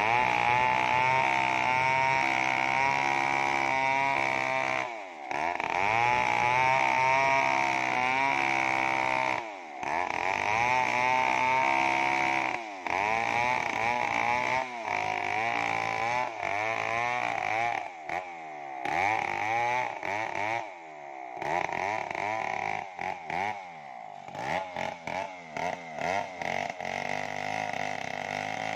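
Stihl 070 two-stroke chainsaw ripping lengthwise along the grain of a kenanga log on an Oregon crosscut chain, running hard under load. The engine pitch sags and recovers every few seconds, and in the later part it wavers more choppily.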